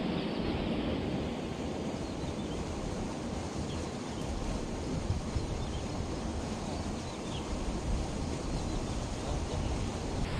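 Wind buffeting the microphone, a steady low rumbling noise outdoors, with a few faint, short, high chirps now and then.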